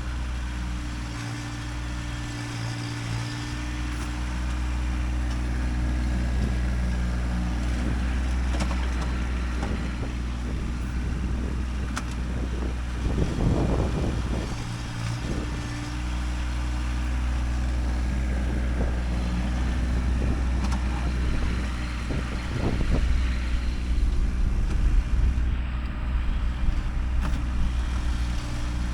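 Kubota tractor's diesel engine running steadily, with a few short knocks and louder rough noisy stretches about halfway through and again near the end.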